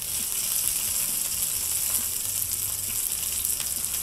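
Marinated red snapper pieces sizzling steadily as they shallow-fry in hot oil on a dosa griddle, with a few light scrapes of a spatula turning the pieces.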